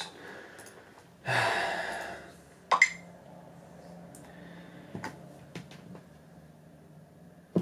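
A man's long breathy exhale, like a sigh, about a second in. It is followed by a sharp click and, later, a few faint taps and clicks.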